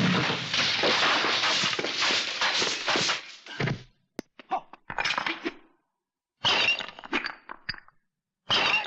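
Breaking and cracking sound effects for kung-fu fight scenes: a dense run of crunching and breaking for about four seconds, then three separate cracks. Each crack starts sharply and dies away within a second, with short silences between them.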